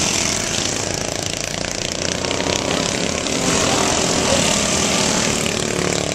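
Engines of several racing riding lawn mowers running together at speed: a steady, dense drone, a little louder again from about three and a half seconds in.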